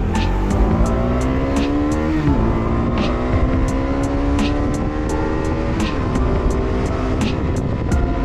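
Hero Karizma XMR 210's single-cylinder engine pulling under acceleration. The revs climb, drop at a gear change about two seconds in, climb more slowly through the next gear, drop again at a second shift near six seconds, then hold steady.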